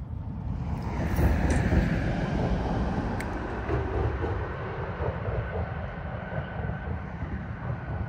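A vehicle crossing the nearby highway bridge: a tyre rumble that builds about a second in and then slowly fades, with a faint, slightly falling whine.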